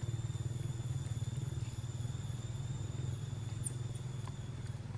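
A small engine running steadily at idle, a low even hum with rapid pulsing, with a faint steady high whine over it that stops near the end.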